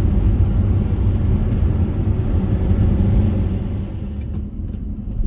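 Road and engine noise inside a moving car's cabin: a steady low rumble that quietens somewhat about four seconds in.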